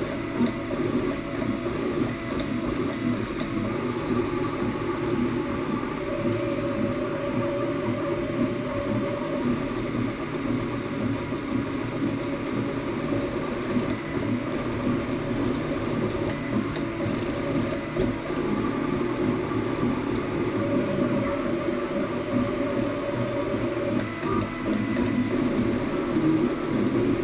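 Ultimaker-clone 3D printer running, its stepper motors whirring steadily with shifting tones as the head and bed move. A higher steady motor tone comes in twice, for about four seconds each time.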